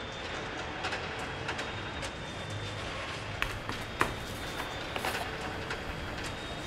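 Steady rumbling, noisy ambience with a faint thin high tone and scattered light clicks and ticks, the sharpest about four seconds in; it sounds like a train passing.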